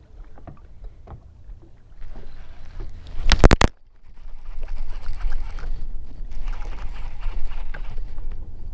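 Water slapping against a bass boat's hull on a choppy lake, with a steady low rumble of wind on the microphone. About three seconds in there is a loud, brief rustle right at the microphone.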